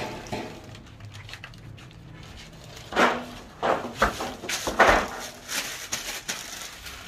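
Scraping, knocking and rustling as a coal-covered corrugated metal lid is lifted off an underground pit oven and its dried mud seal broken away, with a run of loud sudden scrapes from about three to six seconds in.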